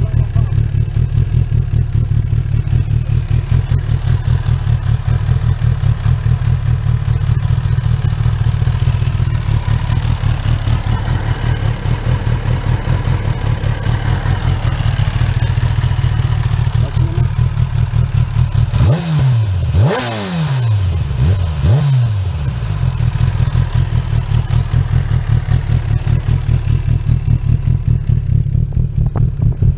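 2020 Kawasaki ZX-10R inline-four with a full titanium Akrapovič exhaust idling with a steady, lumpy pulse. About two-thirds of the way through it is blipped two or three times in quick succession, each rev rising and falling, then it drops back to idle.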